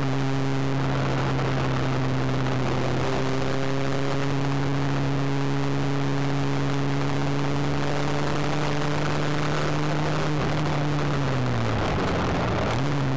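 Ford Fiesta XR2i's 1.8 16-valve four-cylinder engine running at steady revs under way on track, heard from inside the cabin over road and wind noise. Near the end the revs fall away, then pick back up quickly.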